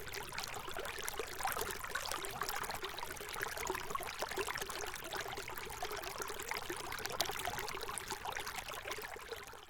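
Water flowing and pouring in a steady rush, fading out at the very end.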